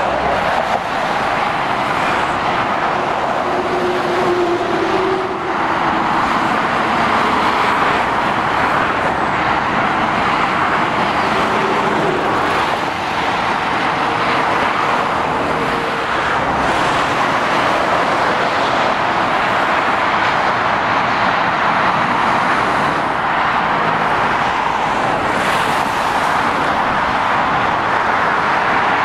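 Steady road traffic: cars and heavy lorries passing, with no single vehicle standing out.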